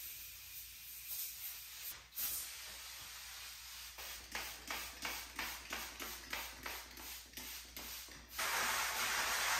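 Hand trigger spray bottle squirting cleaner onto a glass shower door: a few single squirts, then a quick run of about a dozen, roughly three a second. Near the end a steady hiss takes over.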